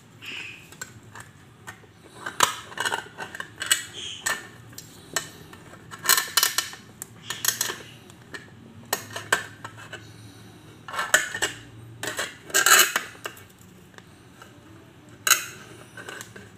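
Kitchen knife punching into and prying around the lid of a tin can: irregular metal-on-metal clicks and short scrapes in bursts, the loudest about three-quarters of the way through.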